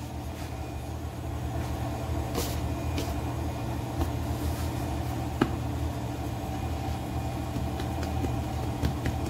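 A steady low mechanical hum, like a running motor, with a few faint clicks.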